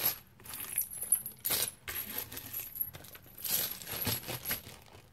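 Small resin pendants and magnets clinking against each other as they are picked through by hand, in several short irregular bursts with a faint high ring.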